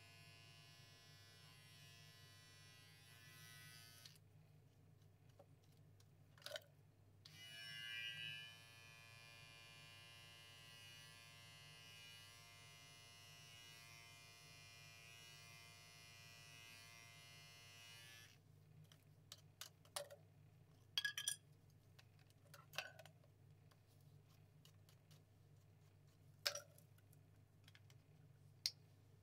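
Electric pet hair clippers buzzing steadily as they shave a Persian cat's fur, switching off about four seconds in, back on at about seven seconds, and off again around eighteen seconds. A few sharp clicks follow in the later part.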